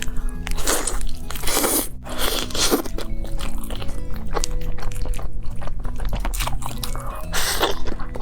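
Several loud, crisp crunching bites into fried food, each followed by chewing, over steady background music.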